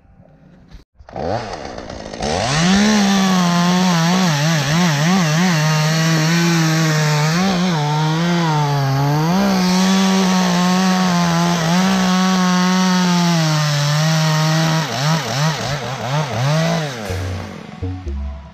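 Chainsaw cutting at full throttle, its engine pitch sagging and recovering again and again as the chain loads up in the wood. Near the end it is blipped a few times, then let off.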